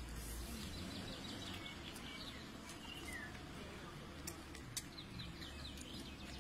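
Small songbirds chirping in several short bouts of quick downward-sliding chirps, over a steady low outdoor rumble, with a couple of sharp clicks about two thirds of the way through.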